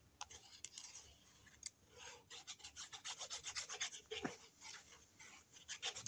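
Hands rubbing and handling paper and cardstock, a run of quick, faint scratchy strokes.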